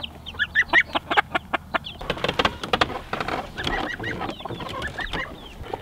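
Silkie hen clucking and chicks peeping, with a quick run of sharp taps and knocks in the first two seconds.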